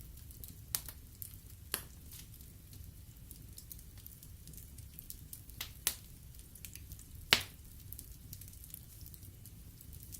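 Wood fire crackling in a fireplace: a steady scatter of small ticks over a low rumble of the flames, with several sharp pops from the burning logs, the loudest about seven seconds in.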